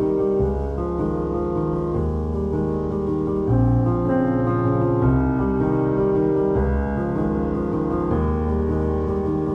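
Background music led by piano or electric piano, with sustained chords changing every second or so.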